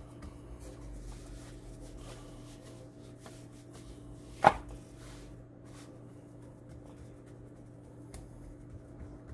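Stretched pizza dough lifted and slapped back down onto a wooden cutting board: one sharp slap about halfway through, over a low steady hum and soft handling of the dough.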